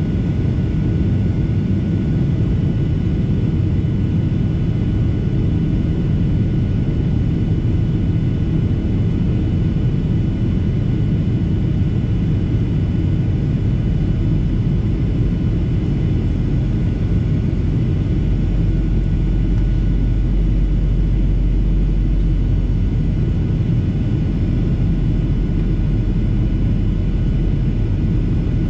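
Steady in-flight cabin noise of a Boeing 737-800 heard from a window seat over the wing: the low rumble of its jet engines and airflow, with faint steady whines above it. The deepest hum swells a little about two-thirds of the way through.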